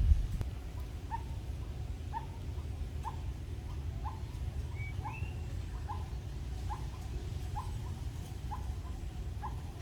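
An animal giving short, high chirps over and over, roughly one every 0.7 seconds, with one longer, higher rising call about halfway through, over a steady low rumble.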